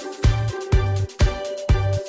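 Electronic dance-style background music with a steady beat: sharp drum hits about twice a second over held bass notes.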